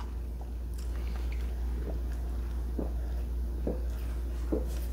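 Drinking from a soda cup through a straw, with about four soft swallows roughly a second apart, over a steady low hum.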